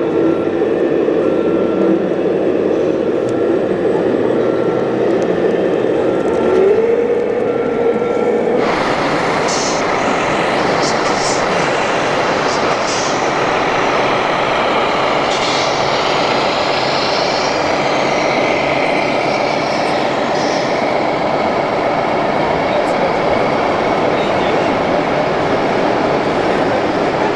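Radio-controlled model trucks and machines running: a steady motor whine that rises in pitch once, with a short beep repeating about every one and a half seconds. About nine seconds in it gives way abruptly to a steady rush of mechanical noise.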